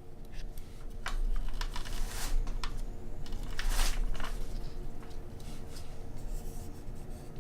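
Scattered clicks and short rustles of a laptop's keys and trackpad being worked, over a steady low hum.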